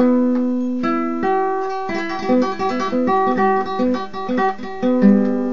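Instrumental music: acoustic guitar playing a melody of plucked notes, with quicker notes from about two seconds in.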